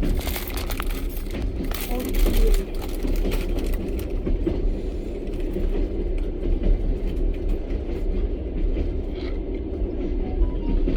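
Passenger train carriage running along the track, heard from inside: a steady low rumble of wheels on rails with the car's rattle. Scattered sharp crackles and clicks come in the first few seconds.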